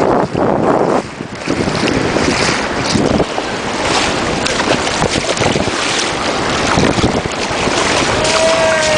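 Wind buffeting the microphone over the rushing wash of sea waves, with scattered short crackles.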